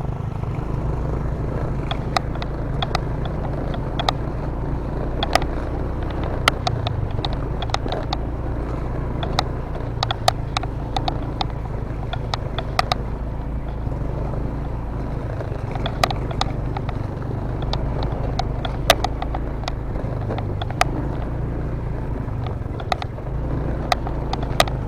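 Motorcycle engine running steadily at low speed on a rough, stony track, with frequent sharp knocks and clatters over it.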